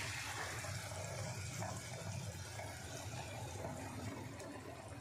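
Liquid red chicken broth sizzling and steaming in hot fried masala paste in an iron kadhai, a steady hiss that slowly dies down.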